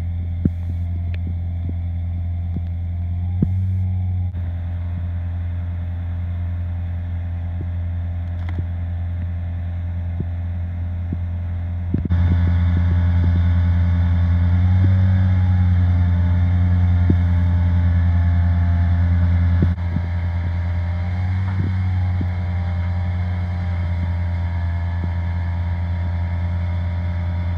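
An engine-driven machine running steadily at one speed, a low, even hum with overtones. It gets louder about twelve seconds in, and a few faint clicks and knocks sit over it.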